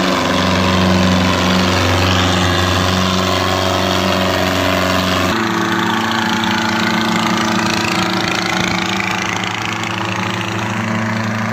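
Diesel engines of two tractors, a red Mahindra Arjun and a blue tractor, running hard under full load as they pull against each other on a drawbar, a loud steady drone. The engine note shifts abruptly about five seconds in.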